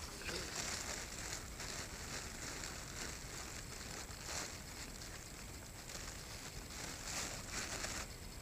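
Irregular rustling and crackling noise in uneven surges that stops abruptly near the end.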